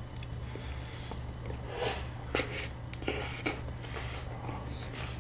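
Soft eating sounds of a creamy ice-cream dessert being spooned from plastic cups. A few light spoon taps and short breathy sniffs and slurps.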